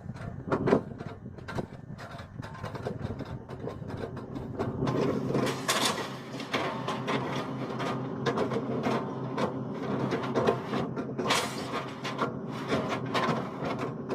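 Excavator engine working, growing louder about four to five seconds in, with repeated sharp cracks and knocks as its bucket chops and splinters oil palm trunks.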